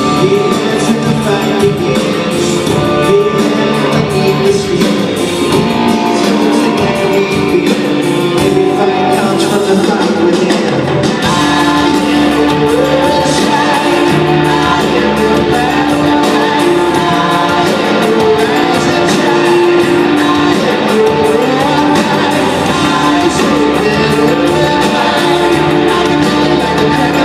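Rock music with singing and guitar, the band growing fuller about eleven seconds in.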